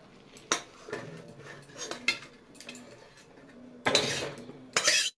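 Metal spatula clinking and scraping against a metal kadhai as boiled small potatoes are scooped and tipped out into a steel plate. A few scattered clinks come first, then louder scraping about four seconds in and again just before the end.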